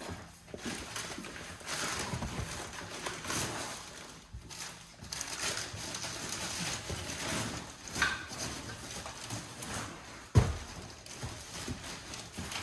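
Rustling and scraping of debris and junk being handled and pulled out by hand, with a sharp knock about ten seconds in.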